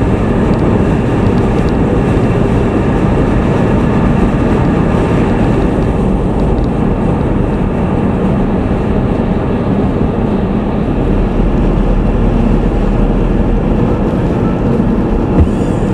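Loud, steady running noise of a vehicle in motion, with a deeper hum added a little past the middle.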